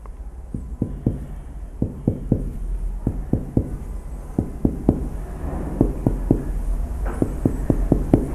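Finger percussion on a patient's left side along the mid-axillary line: a series of short, soft taps, mostly in twos and threes, as the examiner works along the ribs seeking the dull note that marks the upper border of the spleen.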